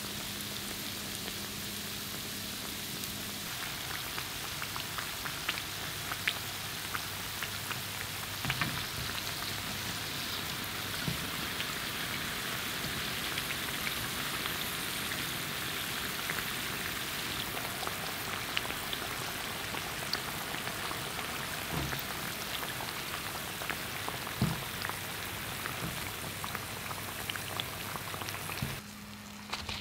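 Churros deep-frying in hot oil: a steady sizzle with scattered small crackles and pops. The sizzle cuts off suddenly near the end.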